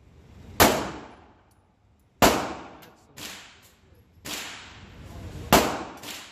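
Handgun shots fired one at a time, a second or two apart. There are three loud, close shots, with two fainter shots between them. Each shot is followed by a ringing echo.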